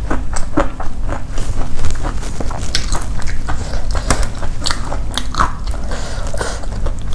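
A person chewing fried fish and rice with crunching and wet mouth clicks, while fingers pick through the crisp fried fish.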